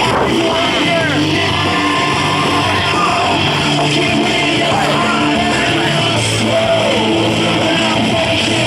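Loud rock music with a singing, yelling voice, played as a wrestler's entrance theme.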